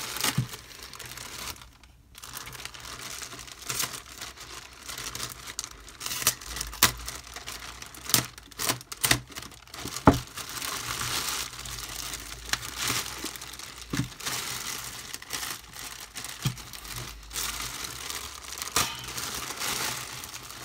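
Clear plastic packaging bags crinkling and rustling as hands unwrap lamp parts, with scattered sharp clicks and one louder knock about halfway through.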